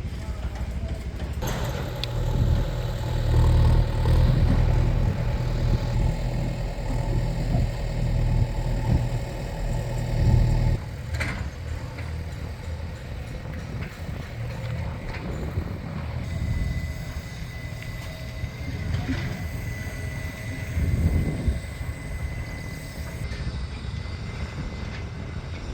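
Motor vehicle noise with a heavy low rumble for the first ten seconds or so, which drops away suddenly to a lighter, steadier background.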